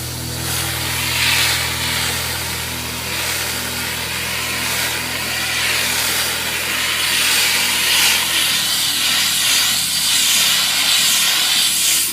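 Water from a pressure hose spraying into the fins of an AC condenser unit, a steady hiss over a low machine hum that weakens in the second half.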